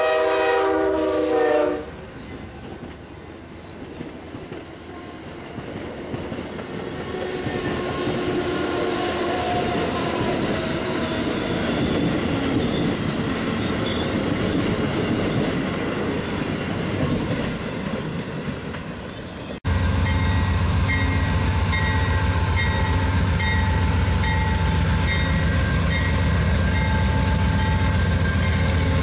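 A passenger train's horn sounds and cuts off about two seconds in. The train then passes with a rising rush of wheel and rail noise. After an abrupt cut about two-thirds of the way through, there is a steady low engine hum with a faint regular ticking.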